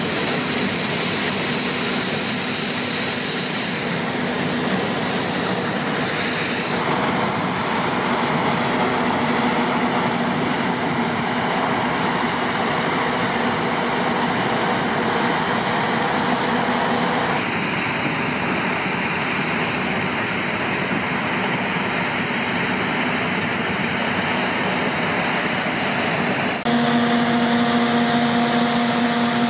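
Claas Tucano 440 combine harvester running under load while harvesting rapeseed: a steady drone of engine and threshing machinery. Near the end it gets a little louder and takes on a steady humming note as the combine unloads grain through its auger.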